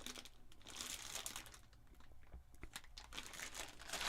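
Faint crinkling and rustling of plastic packaging, with small clicks, as 3D-printer upgrade parts are handled.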